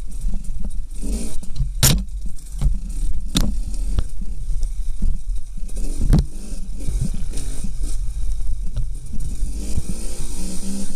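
Enduro dirt bike engine running at low revs on a slow downhill descent of a rough, rocky trail, heard from the rider's own camera on the bike. Sharp knocks from the wheels and suspension hitting rocks and bumps, the loudest about two, three and a half and six seconds in.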